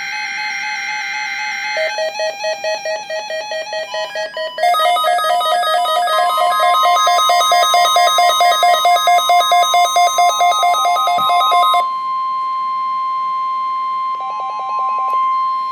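NOAA Weather Radio weekly test alert signal. A harsh digital data burst at the start gives way to rapidly pulsing electronic alert beeps at several pitches. About six seconds in, the steady 1050 Hz warning alarm tone begins and holds.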